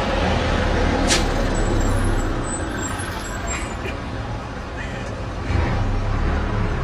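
Road traffic: a heavy vehicle's engine running, with a brief sharp hiss about a second in.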